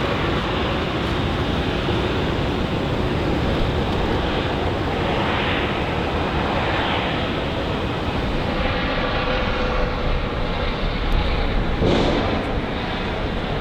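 Jet airliner's engines: a steady rush of engine noise as the aircraft passes, its tone slowly sweeping up and down.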